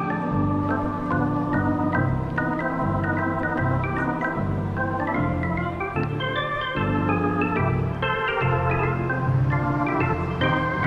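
Background music: quick runs of notes climbing and falling over a steady bass line.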